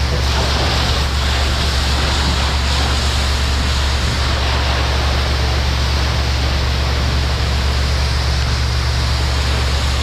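Fire hose nozzle spraying a straight stream of water onto smouldering debris: a loud, steady hiss and splatter, with a constant low hum underneath.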